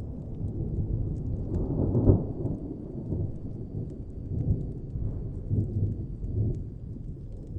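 Distant thunder rumbling low and continuously, swelling to its loudest about two seconds in, with faint scattered crackles of a fire over it.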